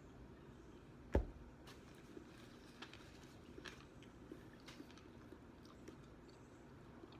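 A glass mug set down on a table with one sharp knock about a second in, followed by quiet chewing with scattered soft, crisp clicks from a mouthful of crispy fried chicken.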